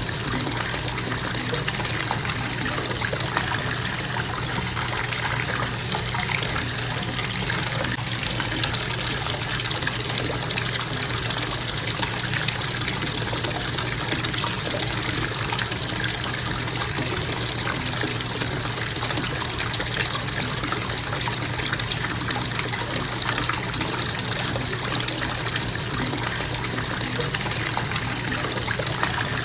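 Bathtub faucet running steadily, water pouring into the tub in an even, unbroken gush.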